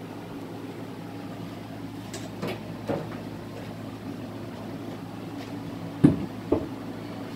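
Wooden hive boards knocking and clunking as they are handled and set down. A few light knocks come around two to three seconds in, then a louder clunk about six seconds in and a second one half a second later, over a steady low hum.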